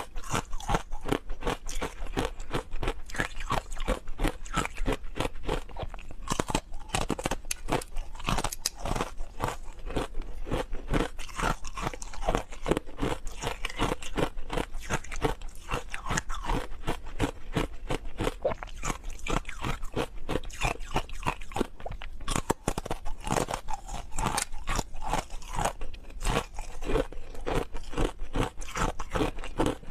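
Crunching and chewing of hard ice coated in matcha green tea powder, picked up close by a clip-on microphone: rapid sharp cracks, many a second, without a break.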